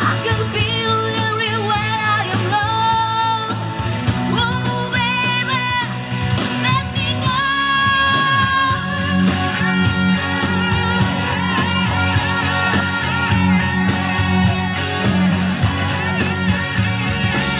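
A woman singing a song live into a handheld microphone, amplified over loud accompanying music. Long held notes with vibrato come in the first half.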